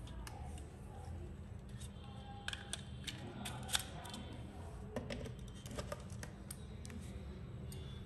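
Faint scattered clicks and taps of a MagSafe charger puck and iPhones being handled and set down on a cloth-covered table, the sharpest click a little before halfway, over a faint steady low hum.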